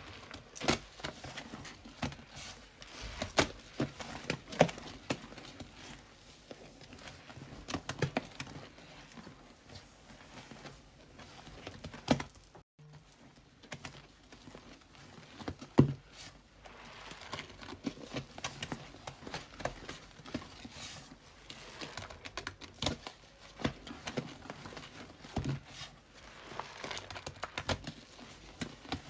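A sponge loaded with thick, foamy soft-scrub cleanser paste being squeezed and scrubbed against a sink surface: wet squishing and irregular sharp clicking of foam and paste, with a brief break near the middle.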